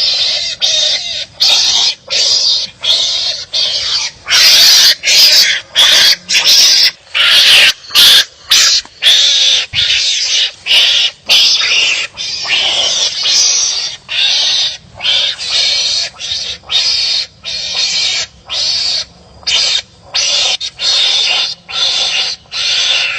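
Wild animals giving a long, rapid run of harsh, loud calls, several a second, as they bark at each other in a fight.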